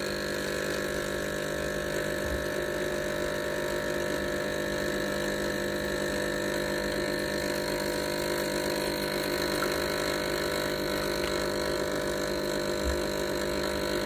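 Milesto Elaine M3 (EM19-M3) dual boiler espresso machine's pump running with a steady hum, pushing water through the coffee puck at brew pressure during the extraction.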